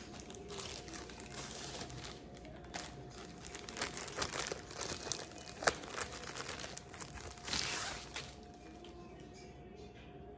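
Crinkling and rustling of packaging being handled, in irregular bursts with a few sharp clicks, busiest in the middle and dying down over the last couple of seconds.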